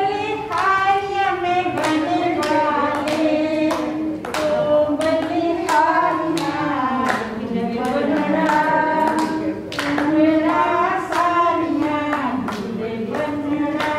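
A voice singing a melody with hands clapping along in time, about two claps a second.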